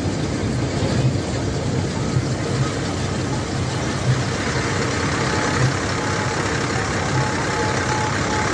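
Combine harvester running steadily at close range while harvesting soybeans: a loud engine and machinery drone with an uneven low throb.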